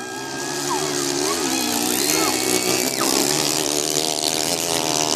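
Motocross dirt bike engine revving up and down, growing louder over the first two seconds as the bike comes closer.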